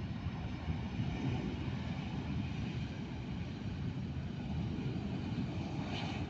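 Jet engines of a twin-engine airliner at takeoff thrust on the takeoff roll: a steady deep rumble with a faint high whine above it.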